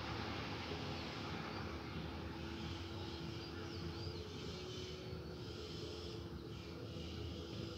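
Steady outdoor background rumble with a faint steady hum. Faint high chirps come in and out over the last few seconds.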